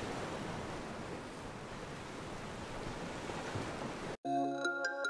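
Steady outdoor rushing noise by the water at night, wind and water on the bay. About four seconds in it cuts off sharply and background music begins.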